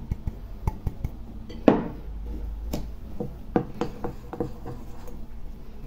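Metal spoon clinking and scraping against a glass mixing bowl as flour is stirred into a thin cocoa-kefir batter: irregular small knocks, one louder one nearly two seconds in.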